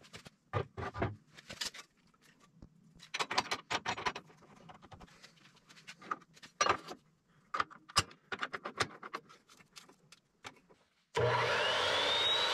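Steel angle iron clanking and scraping as it is set on a metal-cutting mitre saw and clamped, with scattered knocks and clicks. About a second before the end, the Evolution metal-cutting saw's motor starts, its whine rising as the blade spins up to speed.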